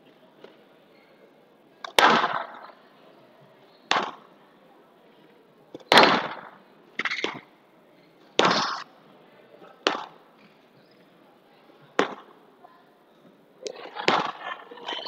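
Squash ball being struck by rackets and cracking off the walls of a glass court, a sharp, echoing hit about every two seconds during a rally, with a quicker flurry of hits near the end.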